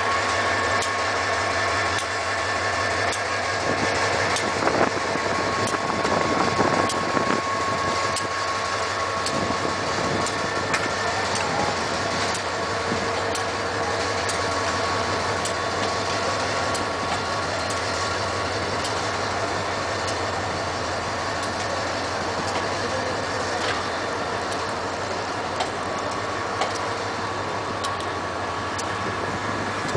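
Diesel locomotive engine running steadily at low revs, with a constant whine over its drone, as the locomotive shunts slowly up to a passenger coach.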